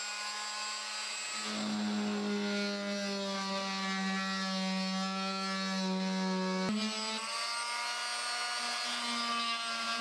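Parkside oscillating multi-tool plunge-cutting through plasterboard, a steady high buzz that grows a little louder about a second and a half in as the blade bites. A single short click about two-thirds of the way through.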